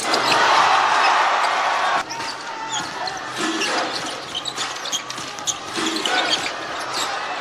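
Basketball game sound in an arena: a ball dribbled on the hardwood court and sneakers squeaking, over steady crowd noise. The crowd level drops suddenly about two seconds in.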